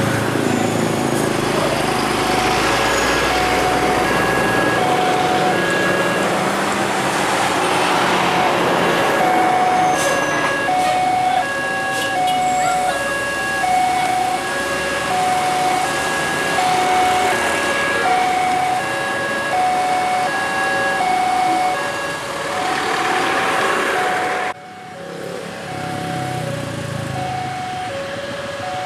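A train passing over a level crossing at speed, a loud rush of wheels on rails that cuts off suddenly near the end. Throughout, the crossing's warning alarm sounds a steady alternating two-note chime, about one note a second.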